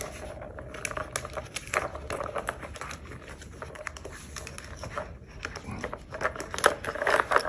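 Plastic ball-track tower toy clattering as a puppy noses and paws at it: irregular light clicks and rattles of the balls and plastic, several in quick succession at a time.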